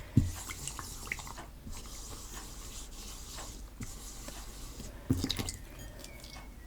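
Hands kneading and squishing homemade white PVA-glue slime: soft, sticky squelches with small clicks, a low knock just after the start and a few more knocks about five seconds in.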